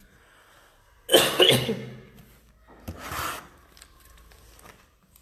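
A woman coughs, clearing her throat, in one loud burst about a second in, followed by a shorter, fainter burst about three seconds in.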